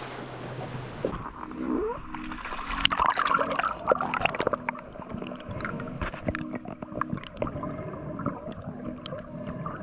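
Underwater sound picked up by a camera in a waterproof housing during a freedive: muffled water movement and gurgling with many scattered small clicks and crackles, starting about a second in.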